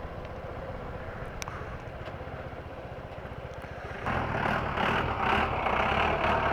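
Motorcycle engine running steadily at low speed, with a louder rushing noise joining about four seconds in.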